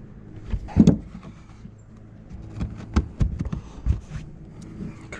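Several knocks and clicks over a low rustle: hands reconnecting the car battery in the trunk and pushing the trunk carpet back into place. The loudest knock comes about a second in, and a few sharper clicks follow around three to four seconds in.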